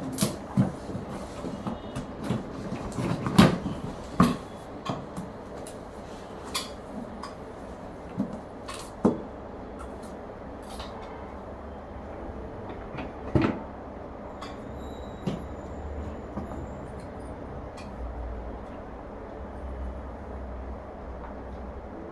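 Irregular knocks, clatters and clicks of washing machine stand parts and packaging being handled and set down, with the loudest knocks a few seconds in and at about 9 and 13 seconds.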